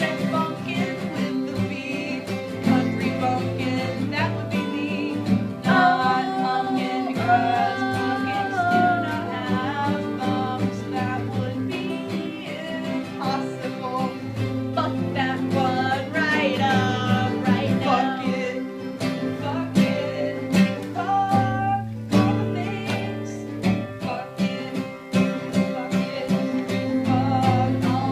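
Acoustic guitar strummed steadily while a voice sings a country-style song with a twang, with the singing coming and going between the guitar passages.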